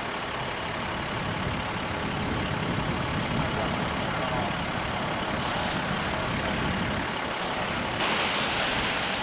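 Steady motor vehicle engine and road noise, with a brighter hiss coming in about eight seconds in.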